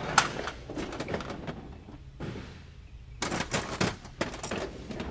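Plastic clicks and knocks from a micro drone's frame and parts being handled on a silicone work mat. There is one sharp click at the start, scattered taps after it, and a quick run of clicks about three seconds in.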